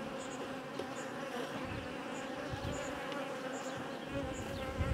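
Honeybees buzzing in an open hive: a steady hum of many worker bees over the frames.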